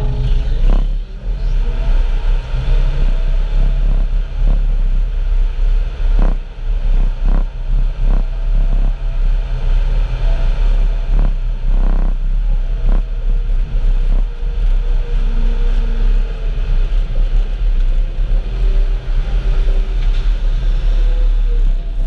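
Heavy farm machinery running with a steady deep rumble while a feed mixer is loaded, with several sharp knocks and clatters scattered through.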